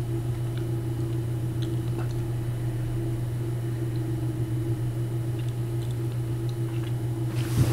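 Steady low electrical hum with light hiss, unchanging throughout, with a few faint ticks.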